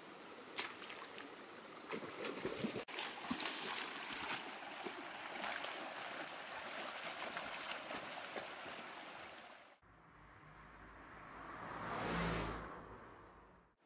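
Shallow stream rushing over rocks, with several sharp splashes as someone wades and grabs in the water; the water cuts off suddenly about ten seconds in. Then a whoosh swells to a peak and dies away over a low hum.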